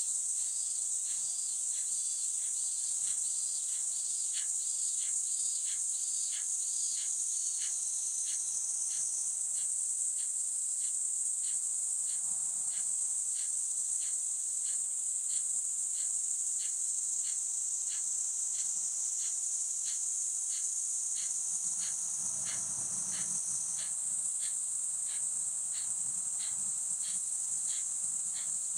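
Kapalbhati breathing: sharp, forceful puffs of breath out through the nose at a steady pace of about two a second, each exhalation driven by the belly while inhalation is left passive. A steady high-pitched drone of insects runs underneath.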